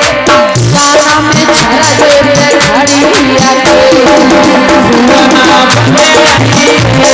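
Loud amplified Indian folk-devotional music, mostly instrumental: a steady hand-drum beat with rattling percussion under a melodic line.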